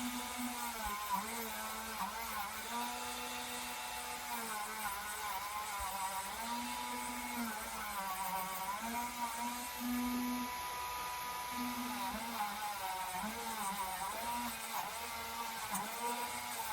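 Small electric rotary tool running at high speed, its whine dipping in pitch again and again as it bites into the metal of a diecast toy car, then picking back up.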